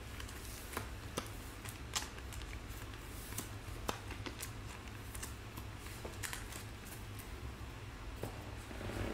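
Trading cards being handled and flipped through: scattered light clicks and soft rustles of card stock, over a steady low hum.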